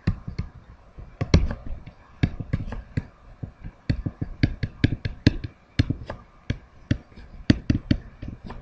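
Pen stylus tapping and scratching on a tablet surface during handwriting: an irregular run of light taps, several a second.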